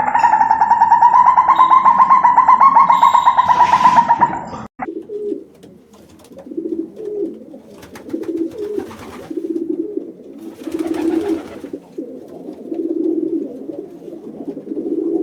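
A loud, drawn-out call with a fast pulsing flutter runs for the first four to five seconds and is cut off abruptly. Then pigeons or doves coo over and over in low, rolling phrases.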